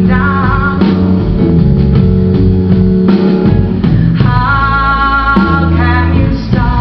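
Live rhythm-and-blues band playing a slow number: drum kit, bass and electric guitar, with a sustained, wavering lead melody line over them.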